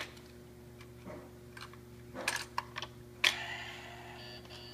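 Plastic toy police car clicking and knocking as a baby pushes and handles it on the rug. The clicks are irregular: a cluster about two seconds in and the sharpest knock about three seconds in.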